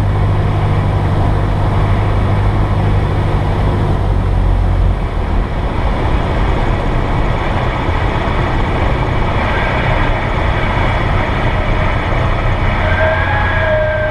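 Cessna 172S's four-cylinder Lycoming engine and propeller heard from the cockpit over steady airflow noise on the landing approach. The engine note drops about five seconds in as power comes back for the landing. Near the end a steady high warning tone begins, the stall warning horn sounding in the flare.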